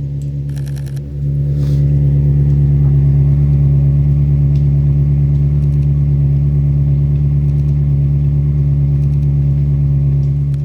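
Ferrari 360's V8 engine running at steady, unchanging revs. It grows louder about a second in and then holds level.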